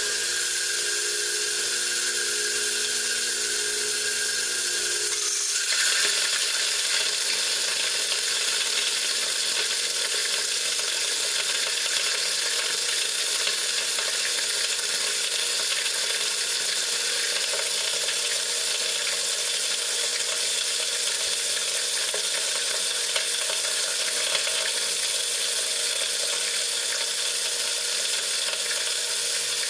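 Homemade stainless-steel corn meal grinder, driven by a 2 HP electric motor, running with a steady hissing grind, as of corn being milled. About five seconds in the sound changes: the motor's hum drops away under a brighter, slightly louder hiss.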